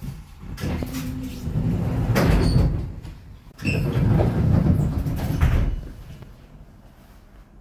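Heard from inside a 1981 LHB GT6 tram car: two loud stretches of rumbling and clattering, starting about a second in and again about four seconds in, then quieter near the end.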